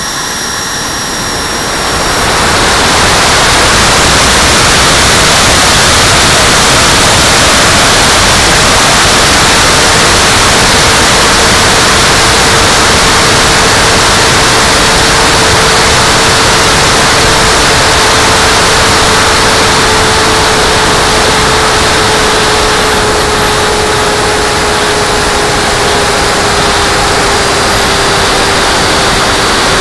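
Electric ducted fan of an RC Scorpion jet, heard from a camera on its nose in flight: a loud, steady rush of fan noise and airflow that rises about two seconds in. A faint whine runs through it and slowly falls in pitch.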